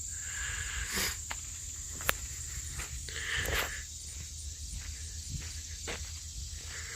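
Cicadas (called locusts locally) droning in one steady high-pitched hum, with footsteps and a few scattered clicks and rustles.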